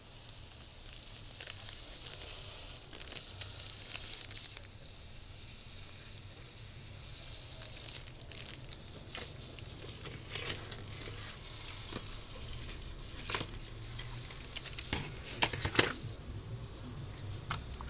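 Cardboard box inserts and plastic bags being handled: scattered light rustles and small clicks, with a few sharper clicks in the last few seconds.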